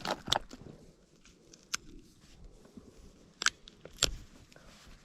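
A handful of short sharp clicks and taps against a quiet background, the loudest two about three and a half and four seconds in: handling noise on a fishing kayak.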